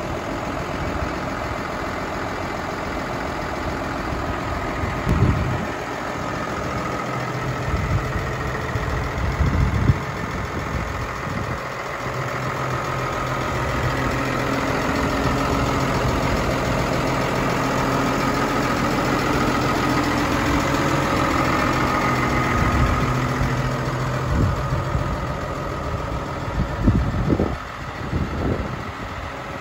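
New Holland T7.210 tractor's six-cylinder diesel engine idling steadily, with a few low thumps on the microphone about five and ten seconds in and again near the end.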